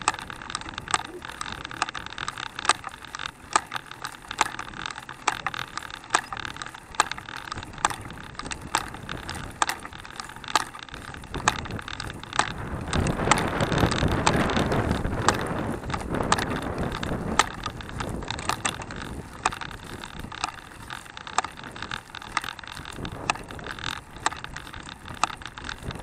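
Handcycle riding along a paved road: frequent sharp, irregular clicks and rattles from its chain and frame over a steady rolling noise. A louder rushing noise rises for a few seconds around the middle.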